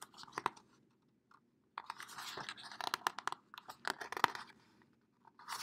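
Paper crackling and rustling as the pages of a hardcover picture book are handled and turned, with small sharp clicks. It comes in patches, the longest in the middle.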